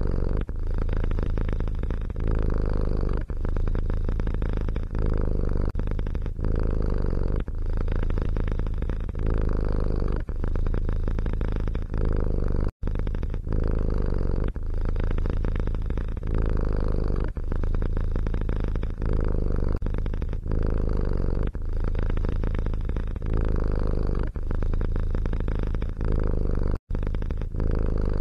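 Domestic cat purring steadily close to the microphone, in a regular rhythm with a brief dip about every one and a half seconds, and two momentary gaps.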